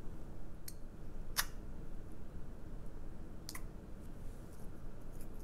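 A clear green glitter slime ball squeezed in the hand, with three short sticky clicks, the loudest about a second and a half in.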